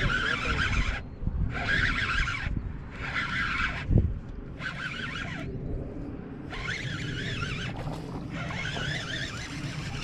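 Baitcasting reel whirring in about six short bursts of a second each as the line is cranked in on a hooked bass, over wind rumble on the microphone. A single short knock about four seconds in.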